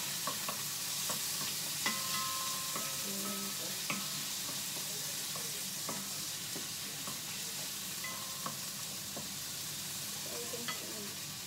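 Food sizzling steadily in a frying pan as it is stirred and turned with a wooden spatula, with scattered light scrapes and taps of the spatula against the pan.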